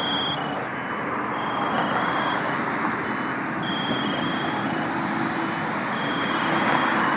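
Highway traffic passing: a steady rush of tyres and engines, with short high-pitched beeps sounding on and off in the background.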